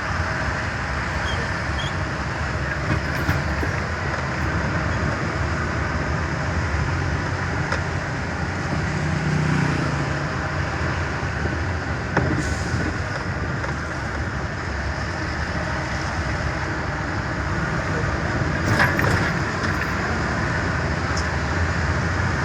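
Truck's diesel engine and road noise heard from inside the cab while driving, a steady rumble and hiss.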